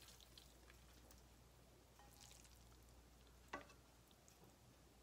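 Near silence: low room hum, with one faint short click about three and a half seconds in.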